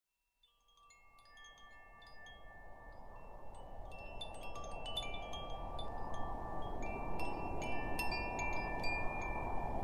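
Wind chimes tinkling, many scattered high ringing notes over a soft, even rushing wash, fading in gradually from silence. It is the opening of a background music track.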